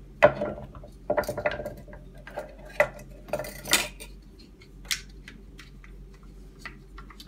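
Irregular clicks, clinks and knocks of a stroller's plastic front-fork housing and its metal coil springs and suspension bars being handled and set down on a wooden board, with small clusters of clicks about a second in and around three and a half seconds in.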